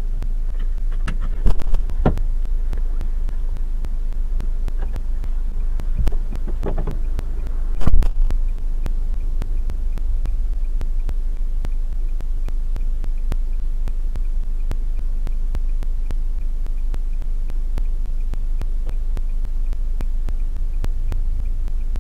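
Steady low hum and throb of a stopped car's idling engine, heard from inside the cabin, with a faint even ticking about three times a second. A few sharp knocks come about one and a half to two seconds in, and the loudest thump comes at about eight seconds.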